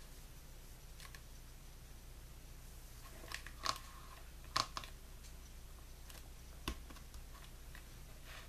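Hands working black washi tape onto a paper planner page: a handful of short, sharp clicks and taps, most in the middle, over a low steady hum.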